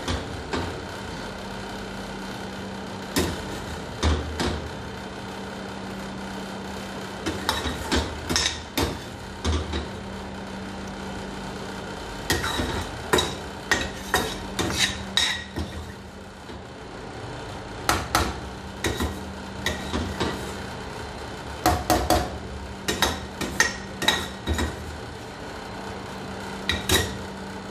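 Steel spoon knocking, clinking and scraping against a stainless steel pan as mango pieces are tipped into simmering milk payasam, in irregular clusters of sharp knocks. A steady low hum runs underneath.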